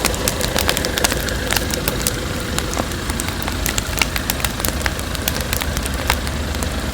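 Campfire crackling: irregular sharp pops and snaps over a steady low rumbling noise.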